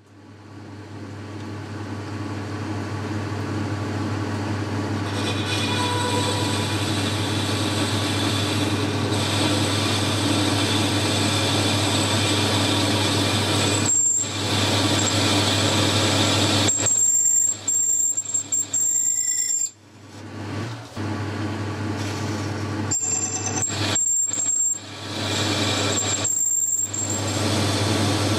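Boxford lathe motor spinning up and running at low speed while a parting-off tool cuts into the turning workpiece, a steady low hum under a thin high-pitched squeal from the cut. The cutting sound breaks off briefly several times in the second half.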